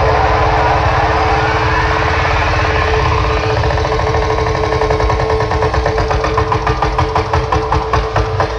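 A large DJ speaker stack playing a loud electronic track: two steady held tones over heavy bass, a falling sweep in the first few seconds, and a fast stuttering beat from about six seconds in.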